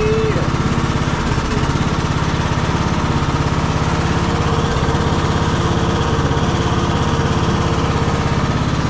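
Troy-Bilt Bronco riding tractor's engine running at a steady speed.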